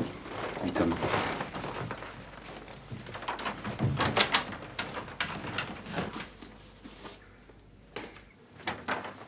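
Irregular knocks, clunks and rustles of movement in a room, the loudest cluster coming about four seconds in. A faint low hum underneath stops about eight seconds in.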